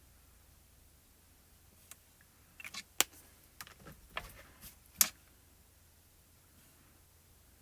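Small plastic clicks and taps from handling a marker, two of them sharp and about two seconds apart, with quieter ticks between.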